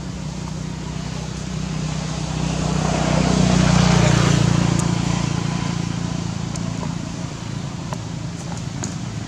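A motor vehicle's engine passing by, a low hum that swells to its loudest about four seconds in and then fades away.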